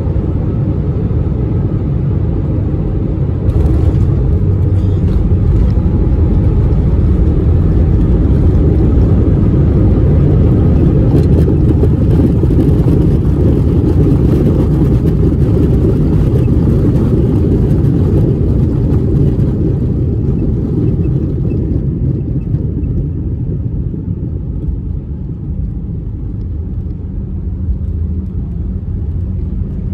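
Airbus A319 cabin noise: a loud, steady rumble of engines and airframe that jumps louder about four seconds in and eases off again after about twenty seconds.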